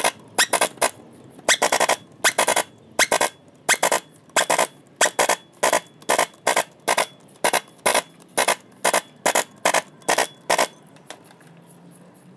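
Pneumatic impact wrench hammering in many short bursts, two or three a second, as it tightens the hub bolts of a marine engine's coupling drive gear. It stops shortly before the end.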